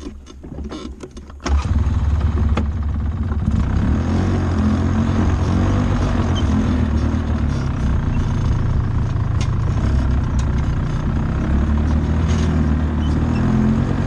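Polaris 6x6 ATV engine: a few knocks and clicks, then about a second and a half in the engine comes up loud and runs steadily as the machine drives off through the woods.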